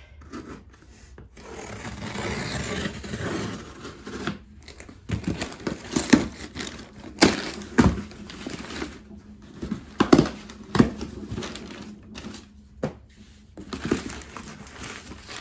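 A knife slitting packing tape along a long cardboard box with a steady rasping sound, then the box being opened and the crumpled kraft packing paper inside rustling and crinkling, with sharp crackles and snaps of paper and cardboard.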